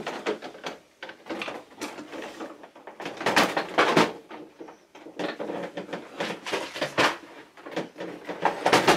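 Plastic toys and household items being handled and moved about: irregular knocks, clatter and rustling. The loudest clatter comes a little past the middle and again near the end.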